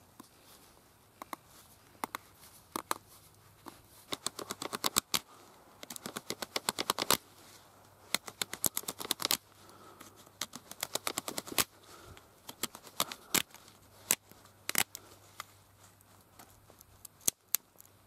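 Stone flake sawing and scoring around a peeled hardwood arrow shaft to cut it to length: runs of quick, sharp scraping strokes, several a second, broken by short pauses.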